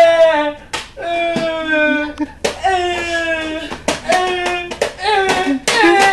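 A person's voice wailing long, drawn-out high notes without words, each one sliding down in pitch, with sharp hand slaps in the gaps between them.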